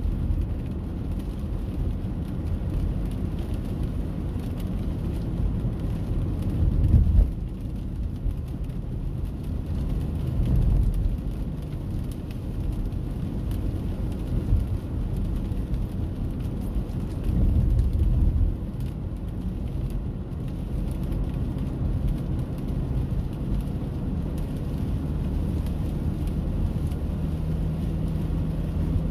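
Rainy-weather outdoor ambience: a steady low rumble with a faint hiss of rain above it, swelling for a second or two about seven, ten and seventeen seconds in.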